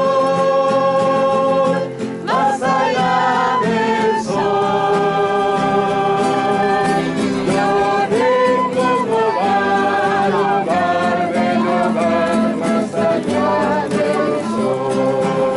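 Singing with guitar accompaniment, a religious song with long held notes.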